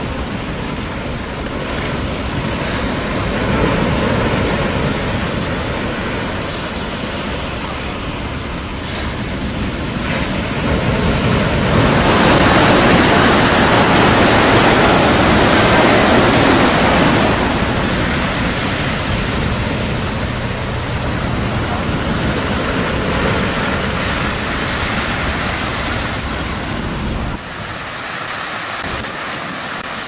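Strong wind over a rough sea: a continuous rush of wind and breaking waves, with wind rumble on the microphone. It swells louder for several seconds around the middle, and near the end the deep rumble drops away suddenly.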